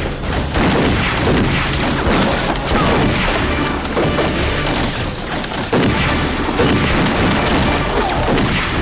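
Gunfight sound effects: rapid, overlapping pistol and rifle shots with heavy booms, over dramatic background music.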